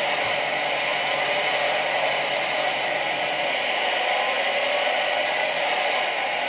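A model ship's electronic sound module playing its motor sound through a small speaker: a steady whirring hiss with no clear pitch and no change in speed.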